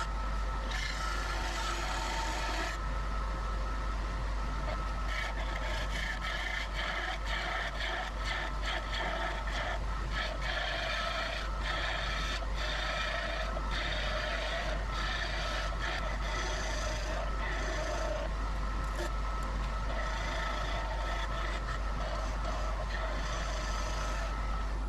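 A turning tool cutting a spinning ash handle blank on a wood lathe, a hissing shave that comes and goes in passes with short breaks, over the steady hum and whine of the running machinery.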